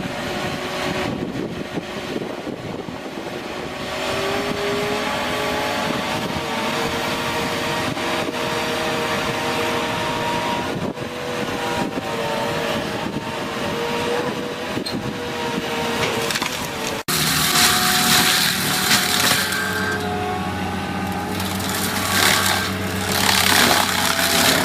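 Heavy forestry or earthmoving machine running under load as it works through trees, with the cracking and crushing of wood. A cut about two-thirds of the way in brings a different machine with a steady low hum and two spells of loud crashing.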